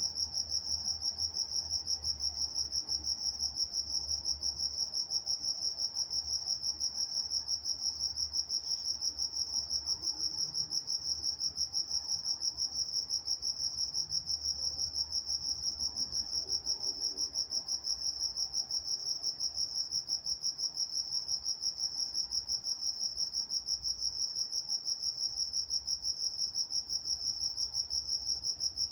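Field crickets chirping at night in a steady, rapid, evenly pulsed rhythm on one high note.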